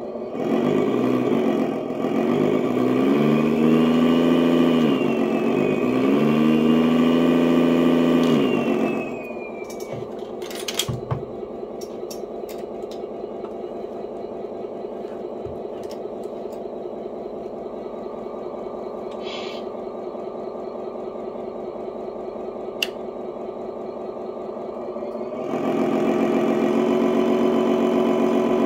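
Simulated truck engine sound from the RC Mercedes-Benz SK 10x6's onboard sound module, played through its speaker and following the transmitter's throttle: it revs up and back down twice in the first nine seconds, settles to a steady idle with a few clicks a second or two later, then rises to a louder, steady higher-rpm run near the end.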